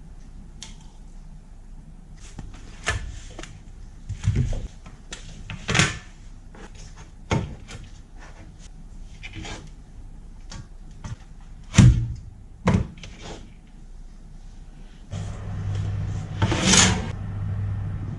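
Kitchen handling sounds: scattered knocks, clicks and clatters of things being picked up and set down, the loudest about two-thirds of the way through. A steady hum, as of a fan, comes on near the end.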